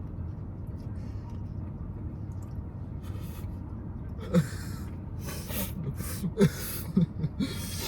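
A person's short breathy gasps and snorts, several in quick succession starting about halfway through, over a steady low rumble.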